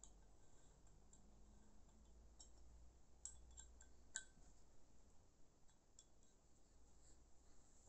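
Faint small metal clicks and clinks as a metal tool and parts are handled against a Theoben Rapid 7 air rifle action: a few scattered ticks, a quick cluster about three seconds in, and the sharpest click a little after four seconds, over a low hum.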